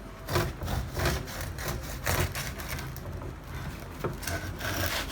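Irregular scraping and rubbing strokes, several in a row and unevenly spaced, as a freshly baked loaf of home-made soda bread is handled on a hard surface.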